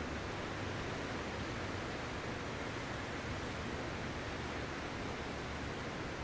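Ocean surf heard as a steady, even rushing hiss, with no single wave breaking out or swelling.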